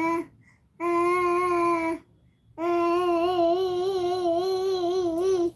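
A woman's voice holding long, level vocal tones without words: three held notes at the same pitch with short breaks between them, the last about three seconds long and wavering slightly.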